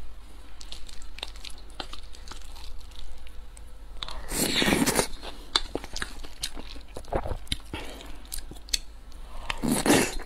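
Close-miked mouth sounds of eating soft mapo tofu from a wooden spoon: small wet chewing clicks throughout, with two louder bites of a spoonful, about four seconds in and near the end.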